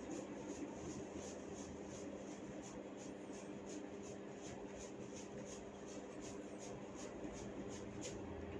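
Hair cracking: tufts of hair tugged at the scalp in quick succession, giving faint, evenly spaced snaps at about two or three a second, over a steady low hum.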